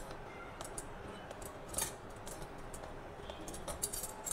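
A few light metallic clicks of steel tongs gripping and turning a bhakhri over an open gas-burner flame, the clearest about two seconds in, over a low steady hiss.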